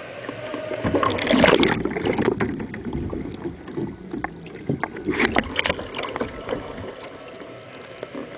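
Water splashing and churning around a capsizing sea kayak as it goes over and is rolled back upright. The loudest splash comes about a second in, and a second burst of splashing about five seconds in as the boat comes back up.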